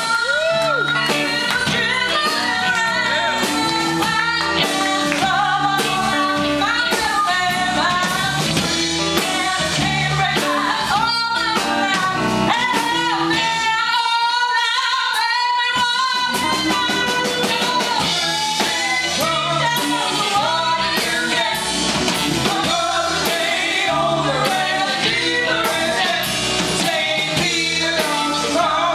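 A live rock-blues band plays, with a female lead vocal over electric guitars, bass and drum kit. About halfway through, the bass and drums drop out for a couple of seconds while the voice holds a wavering note, then the band comes back in.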